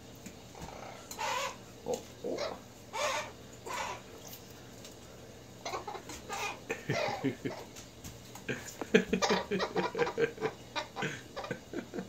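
Amazon parrot bathing in a metal water bowl, beating its wet wings in the water. A few separate splashes come early, then a fast, dense run of splashing and wing flapping over the second half.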